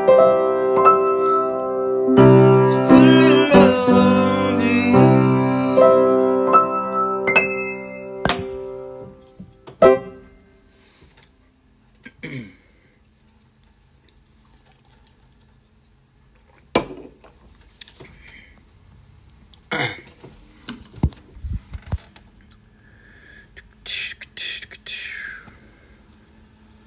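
Acoustic guitar being played, with chords ringing out, until it stops about ten seconds in. After that it is quiet apart from a few scattered soft knocks and taps.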